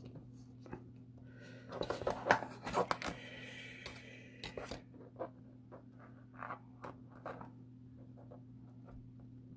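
Hands handling a small laser-cut wooden boat model and tweezers: light clicks and scraping of thin wood pieces, busiest in the first half and sparser toward the end, over a steady low hum.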